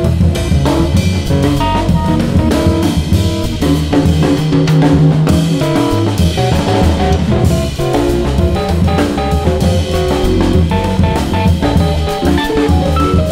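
Background music with a steady beat on a drum kit, with bass and guitar.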